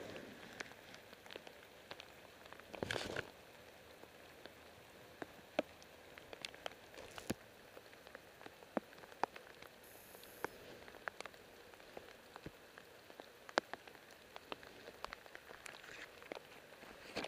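Light rain: scattered drops ticking at irregular intervals over a faint steady hiss, with a brief louder rustle about three seconds in.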